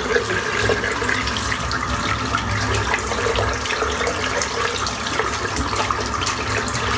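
Tap water running steadily into a bathroom sink, splashing as shaving soap is rinsed out.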